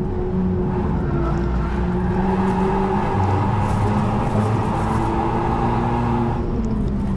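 Renault Mégane RS Trophy-R's 1.8-litre turbocharged four-cylinder heard from inside the cabin, pulling hard at full throttle in third gear with the revs climbing towards the limiter. The note changes near the end as the throttle comes off.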